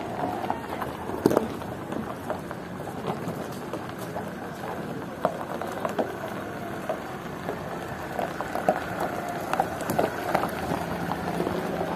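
Many people walking on a gravel road, a steady crunching patter of footsteps, with a van rolling slowly over the gravel among them.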